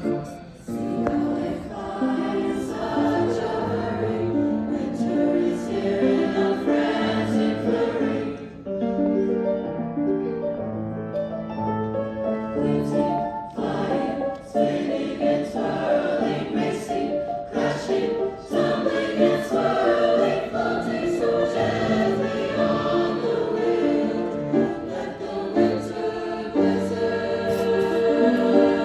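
High school choir singing, with many voices holding and moving between sustained chords.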